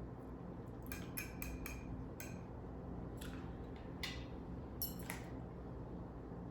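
Eating sounds: a scattering of short clicks and light scrapes of cutlery against a dish.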